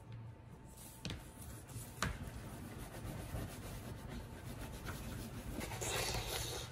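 Wax crayons scratching and rubbing on poster board as green is coloured in, growing louder towards the end, with a couple of sharp taps about one and two seconds in.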